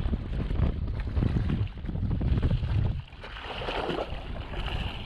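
Wind buffeting the microphone in an uneven low rumble, easing about three seconds in, with water sloshing and splashing around a drifting jet ski.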